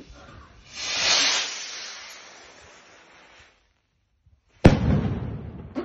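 Firework rocket launching: a loud whooshing hiss about a second in that trails off as it climbs. About 4.6 s in comes a single very loud bang that echoes away.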